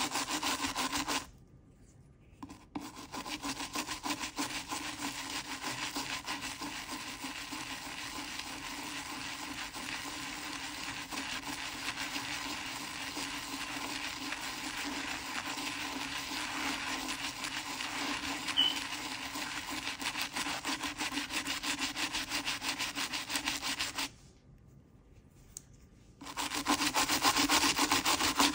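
Stiff-bristled brush scrubbing fast back and forth over a coin in wet, foamy cleaning paste, a steady wet scratching. It stops briefly about a second in and again near the end, with one small sharp click about two-thirds of the way through.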